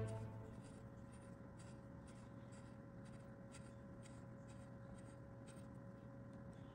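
Faint, irregular scratchy rubbing as a hand twists a pool cue's threaded joint together, over a steady low hum.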